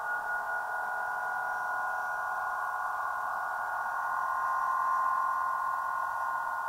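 104-inch Aeolian wind harp, its strings sounding together in the wind as a chord of many sustained overtones, swelling about five seconds in.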